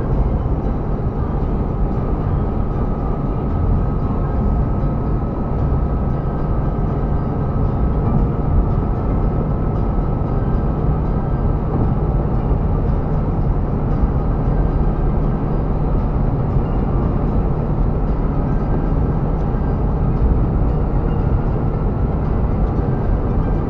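Steady road noise inside a car's cabin while cruising at motorway speed: a constant low drone of tyres and engine with a faint steady whine above it.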